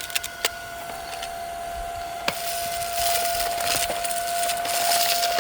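Cordless stick vacuum's motor running with a steady high whine and a rushing hiss as it sucks up sand, with grains and small stones ticking sharply through the plastic nozzle, a few near the start and one a little after two seconds in.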